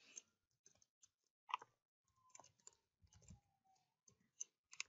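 Faint, irregular keystroke clicks from typing on a computer keyboard.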